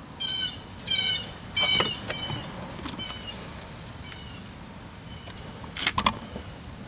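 A run of short, high-pitched animal calls, three clear ones in the first two seconds and fainter ones after. A couple of sharp clicks come near the end.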